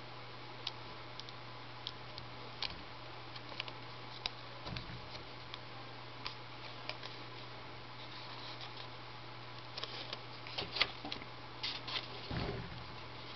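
Origami paper crinkling and crackling in the hands as it is folded, in scattered small clicks that grow busier and louder near the end, with a couple of soft thumps and a steady low hum under it all.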